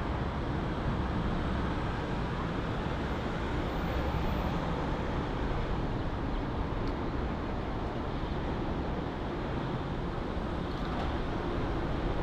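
Steady low rumble of airport background noise, with no single aircraft rising or passing.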